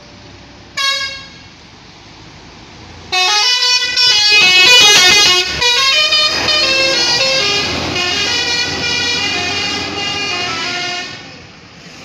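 Telolet musical horn of an ALS intercity bus: one short toot about a second in, then from about three seconds in a loud tune of changing horn notes lasting about eight seconds before it stops.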